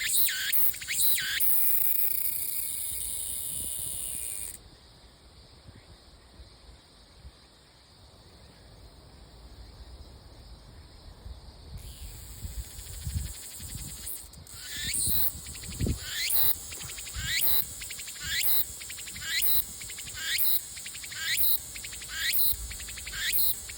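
Cicada singing: a call repeated about every 0.8 s, broken by a steady buzz that cuts off suddenly about four seconds in, then a quieter stretch before the rhythmic calls build back up and go on loudly through the second half. A few low thumps come in the middle.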